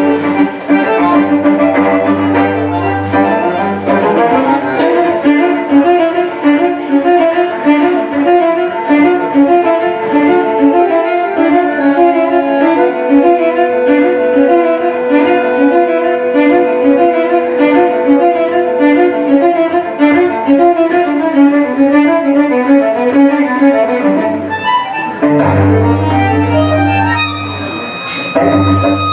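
Bandoneon and cello duo playing a new-tango piece: quick running notes over sustained low notes, with one long held note in the middle.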